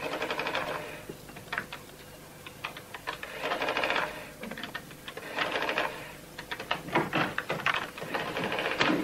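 Electric printing calculator printing onto its paper tape in repeated short bursts of rapid clicking, with single key clicks between the bursts.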